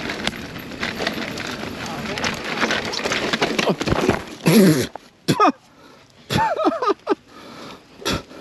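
Mountain bike rolling over rough dirt trail: steady tyre and rushing noise with quick rattling clicks, which stops about halfway through. Then the rider's voice in short exclamations, with a few sharp knocks.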